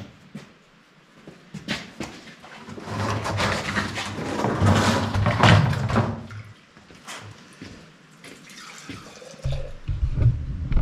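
Hot chicken bone broth being ladled and poured into a glass canning jar: a splashing pour for a few seconds about three seconds in, with a few short knocks of ladle and jar.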